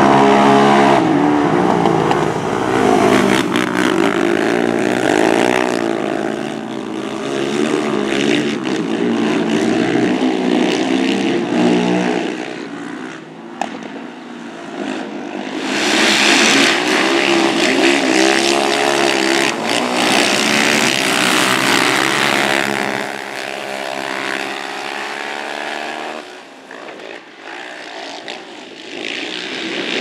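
Racing quad bike engines, several at once, revving up and down as the quads lap the dirt track and pass by. The sound grows loudest for several seconds a little past halfway, as the pack comes close.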